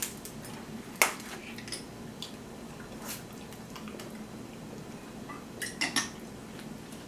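A few sharp clicks and taps of tableware and food containers being handled over a low, steady background, the clearest about one second in, about three seconds in and a pair around six seconds.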